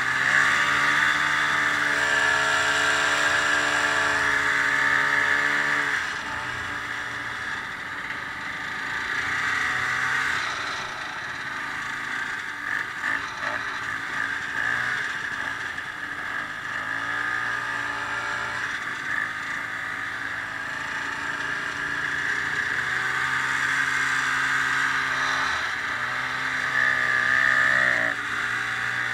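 Ski-doo snowmobile engine running while under way, rising and falling in pitch as the throttle is opened and eased. It is loudest for the first few seconds, drops back through the middle, and speeds up again near the end.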